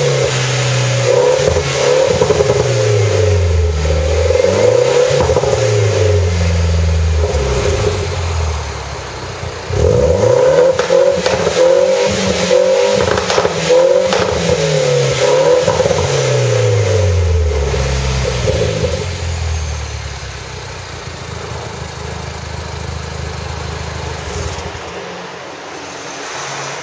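BMW MINI R56's four-cylinder engine revved up and down again and again through an aftermarket Duell rear silencer and twin tailpipes. It drops back briefly about a third of the way in, revs several more times, then settles to a steady idle for the last several seconds.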